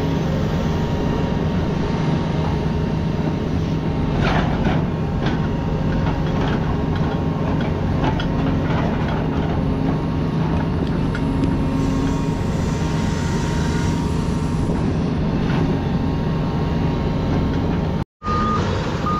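CAT 336E excavator's diesel engine running steadily under work while its rake digs and sorts rocks, with occasional clunks and rattles. A reversing alarm starts beeping near the end.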